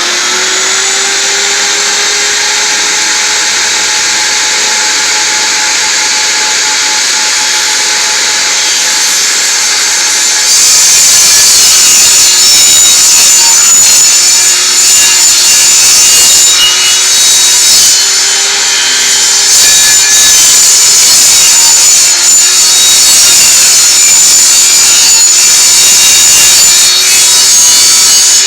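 Table saw running steadily. About ten seconds in it gets louder and rougher as the blade cuts into a 5/8-inch plywood blank that is turned on a bolt pivot to saw a circle.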